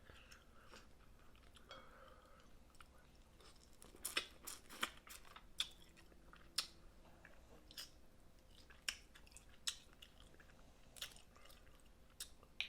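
Close-miked eating of snow crab: quiet chewing with scattered sharp wet clicks and smacks, more frequent after about four seconds in.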